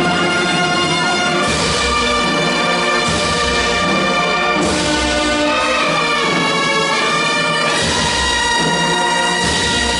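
Brass band playing a slow funeral march: held brass chords for trombones and trumpets, with bass drum and cymbal strokes about every second and a half.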